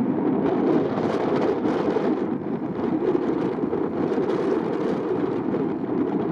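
Steady, rumbling jet-engine noise from an Airbus A319-112's CFM56 turbofans after landing, with wind gusting on the microphone.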